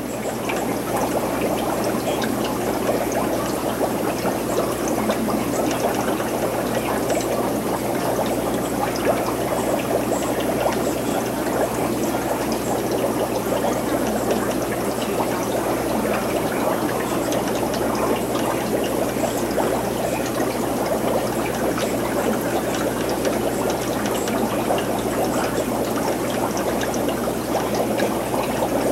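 Aquarium water trickling and bubbling steadily from the tank's filter or aeration, over a low steady hum.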